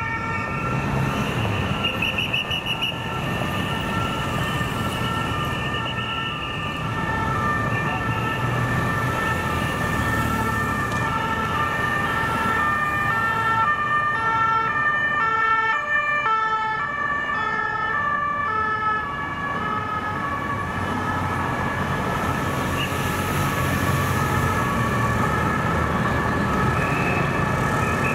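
Police escort sirens sounding as a motorcade passes. Several two-tone sirens overlap, each stepping back and forth between two pitches, and they are thickest in the middle. Engine and tyre noise from traffic runs underneath.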